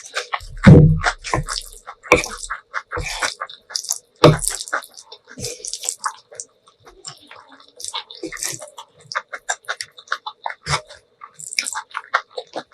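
Close-miked wet eating sounds of spicy ramen noodles and kimchi being slurped and chewed: irregular smacks and clicks, with a heavy low thump about a second in.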